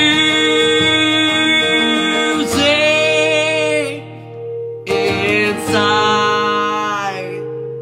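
Man singing three long held notes, the second one wavering in pitch, over a strummed acoustic guitar.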